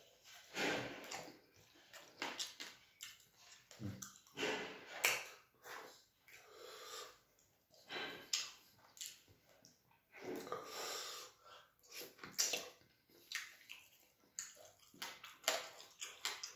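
Close-miked sounds of eating fufu and chicken in Ghanaian light soup by hand. There is wet chewing and mouth noise in irregular bursts, mixed with short clicks and smacks, as fingers work through the soup.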